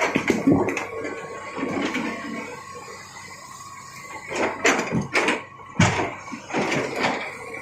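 Excavator loading rocks: stones knocking and clattering together, over a faint steady whine. The clatter is heavy at first, eases off, then comes back in a run of sharp knocks in the second half.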